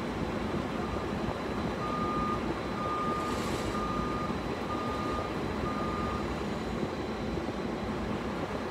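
A vehicle's reversing alarm beeping outside, heard from inside a parked car's cabin. It is a single high beep repeated about once a second, growing louder, about seven beeps in all, and it stops about six seconds in. A steady low rumble and hiss runs under it.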